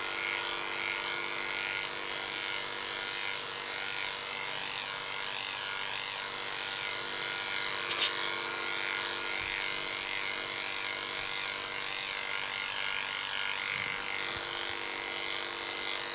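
Electric dog-grooming clipper with an attachment comb running steadily while it is pushed through a thick coat, with one short click about halfway.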